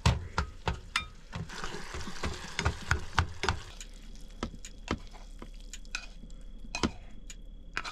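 A utensil clicking and scraping against a frying pan as fried leftovers are stirred and served out, over a faint sizzle. The knocks come thick for the first three seconds or so, then thin out to an occasional clink.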